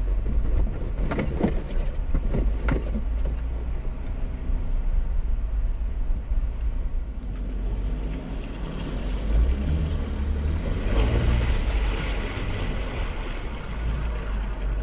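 Off-road 4x4 creeping along a muddy dirt trail, heard from inside the cab: a steady low engine and road rumble, with a few knocks and rattles over bumps in the first few seconds. About eight to twelve seconds in there is a louder rushing noise as the tyres cross the wet, muddy stretch.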